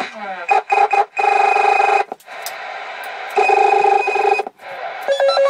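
CB radio roger-beep call tones (llamadores) playing through the radio's speaker. They open with quick gliding tones, then come short beeps and two long steady tones with quieter hiss between them, and a fast run of stepped beeps near the end.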